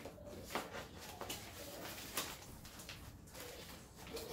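Paper and a clear plastic bag being handled and rustled, with a few light taps as small items are put down on a tabletop, the strongest about two seconds in.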